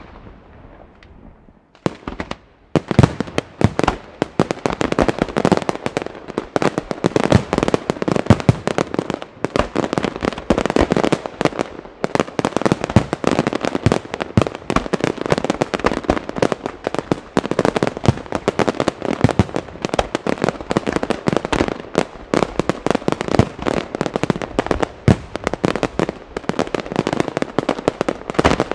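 Professional fireworks display, with aerial shells bursting and comets fired from the ground. After a short lull in the first two seconds it becomes a dense, nonstop barrage of rapid bangs and crackling.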